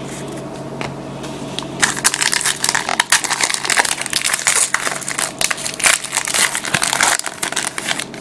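A trading-card pack wrapper being torn open and crumpled by hand: a dense, crackly crinkling that starts about two seconds in and stops about a second before the end, over a faint steady hum.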